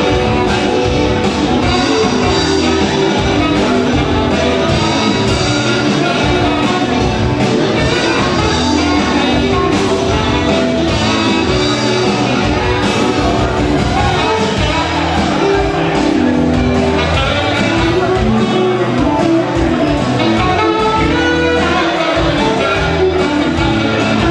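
Live rock band playing: electric guitars and drum kit with saxophone, and singing over the top.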